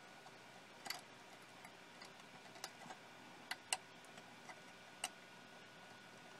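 Scattered small clicks and taps of plastic wire connectors being handled and pushed into place, as galvo scanner cables are plugged in; about five sharper clicks stand out over a faint hiss.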